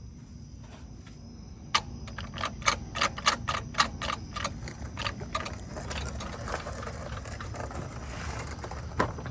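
Manual gear shifter and shift linkage being rocked left and right across the gate, giving a quick string of sharp clicks and clunks from a couple of seconds in, thinning out after about six seconds, over a steady low hum.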